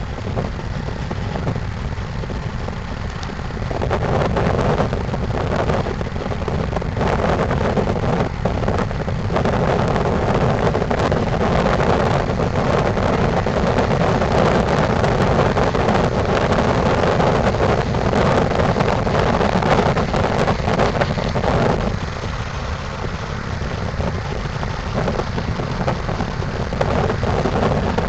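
Wind buffeting the microphone over a steady low rumble, growing louder about four seconds in and easing for a few seconds near the end.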